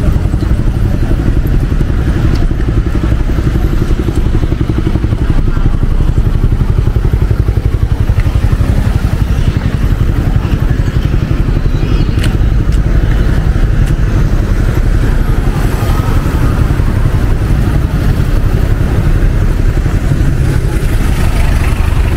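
City street traffic: motorcycle and car engines running close by, a steady, loud low rumble with no pause.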